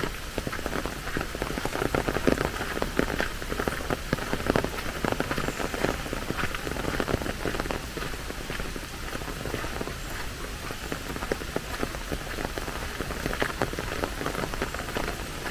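Steady rain falling, a dense, irregular patter of individual drops.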